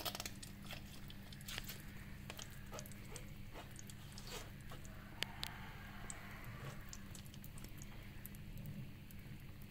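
Faint wet squishing and small clicks of thick guava pulp being pressed by hand through a fine mesh strainer, over a steady low hum.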